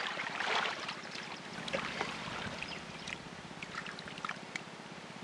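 Shallow muddy water splashing and trickling around a bamboo plunge-basket fish trap as a hand works against it. A burst of splashing in the first second, then scattered small splashes and clicks.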